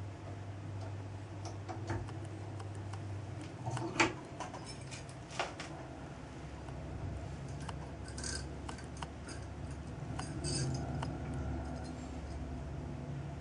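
Light metal clicks and clinks of small machined parts being handled: an aluminium model flywheel on its shaft in a lathe's three-jaw chuck, and an Allen key. The sharpest click comes about four seconds in and another about a second later, with a run of fainter ticks later on. A steady low hum runs underneath.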